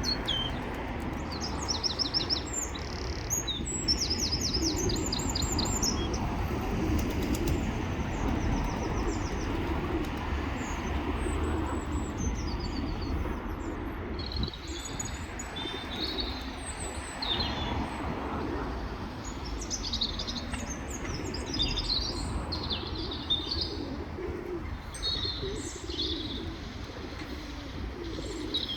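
A flock of birds: small birds chirp in quick high bursts again and again over a steady low hum of pigeons cooing.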